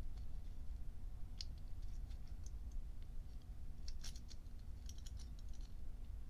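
Small metal lighter parts clicking and scratching as the snuffer and its ratchet arm are worked into place under the gears of an Evans Spitfire automatic lighter mechanism. A few faint ticks early, then a cluster of clicks about four seconds in and more about a second later, over a low steady hum.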